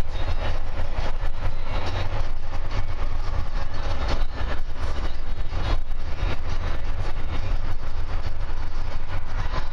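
Steady low engine and road rumble heard inside a vehicle travelling at speed on a motorway, with continuous tyre and wind noise.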